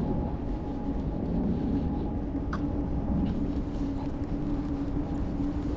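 Steady low rumble of a running vehicle, with a steady droning hum throughout.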